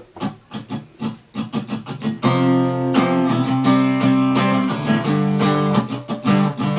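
Acoustic guitar: a few short muted strokes, then about two seconds in, full chords strummed steadily.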